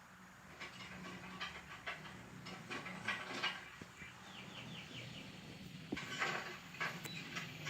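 Cartoon sound effects played backwards: a busy string of short clicks, scrapes and rustles over a low hum, with a quick run of five chirps about four seconds in.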